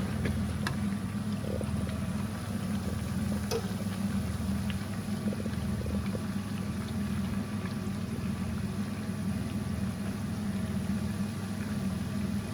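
Lamb pieces deep-frying in a karahi of very hot oil, a steady bubbling over a continuous low hum, with a couple of faint utensil ticks.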